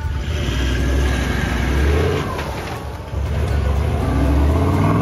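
Toyota LandCruiser 70 Series engine pulling in first gear through a water crossing. The revs swell twice, the second time from about three seconds in.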